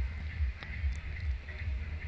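Low steady background rumble with a faint thin whine and a couple of faint clicks. No speech.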